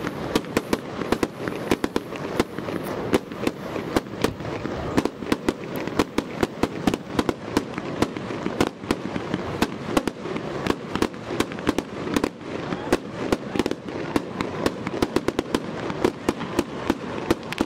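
Aerial fireworks going off: a dense, continuous run of sharp pops and bangs, several a second, with louder reports scattered throughout.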